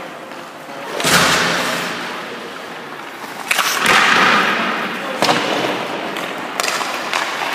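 A hockey goalie's skate blades and leg pads scraping and sliding across rink ice, with a hiss trailing after each push. Several sharp knocks of pucks and sticks cut in, the loudest about a second in.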